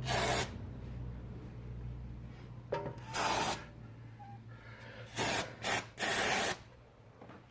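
Aerosol brake cleaner sprayed in short hissing bursts, about five of them, the longest around half a second, with a pause of a few seconds after the first.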